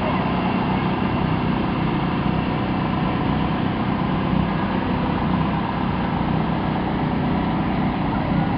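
Large farm tractor's diesel engine running steadily as it pulls a flatbed trailer past.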